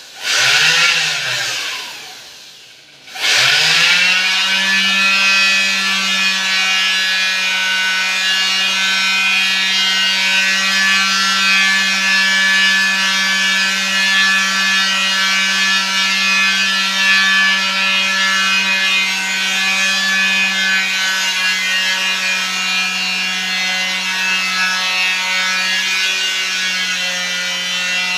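A small electric motor buzzing at a steady pitch. In the first couple of seconds its pitch swells up and falls away; it dies down about three seconds in, then comes back up and runs steadily.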